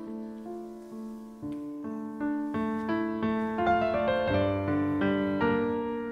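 Slow, gentle solo piano background music, single notes at first, becoming fuller with chords and low bass notes about halfway through.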